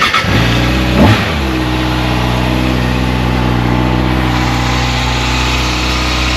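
Kawasaki motorcycle engine starting up, blipped once about a second in, then settling into a steady idle.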